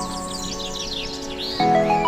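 Gentle background music with birds chirping rapidly over it; a new chord of held notes comes in about one and a half seconds in.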